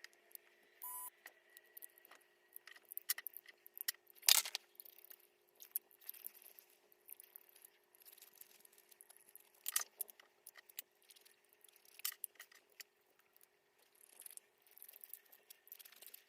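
Hair trimmer parts being handled during disassembly: scattered light clicks, taps and scrapes of plastic and metal, the sharpest about four seconds in, over a faint steady hum.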